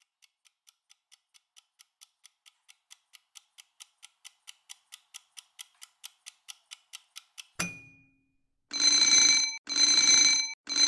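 Countdown timer ticking rapidly, about four ticks a second and growing louder, then a sharp click near the end of the ticking and three long loud rings of an alarm bell as the countdown reaches zero.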